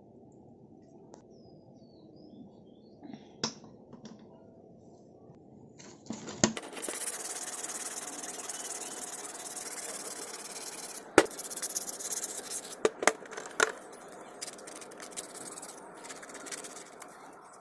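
Light clicks of small parts being handled. A loud, steady hiss then runs for about four seconds and is cut off by a sharp knock. A few more sharp knocks and a fainter hiss follow.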